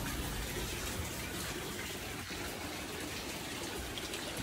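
Hot-spring water pouring steadily from a spout into an open-air stone bath, a continuous splashing rush.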